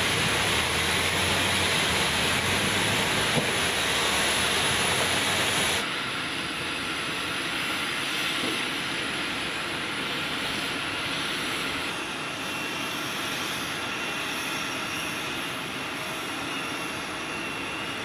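Steady engine and machinery noise on an airfield flight line, with no distinct events. The level drops suddenly about six seconds in and the sound shifts again near the twelve-second mark.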